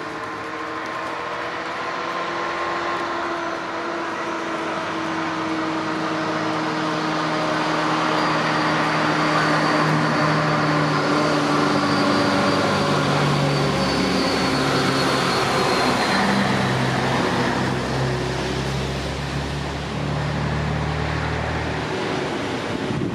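Engines of vintage trucks approaching along a road one after another, the running growing louder over the first several seconds and then holding steady.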